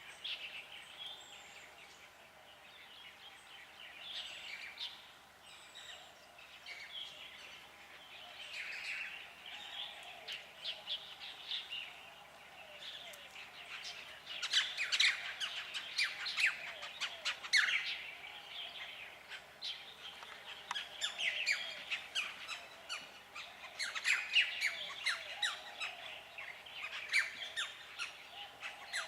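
A chorus of wild birds chirping and squawking, many calls overlapping, with busier bursts of rapid calls about halfway through and again near the end.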